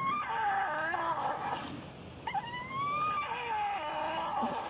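A dog whining: several long, high, wavering whines, one after another.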